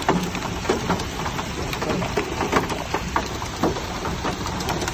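Rain pattering on a car with scattered sharp ticks, heard from inside the moving car, over a low steady hum from the car itself.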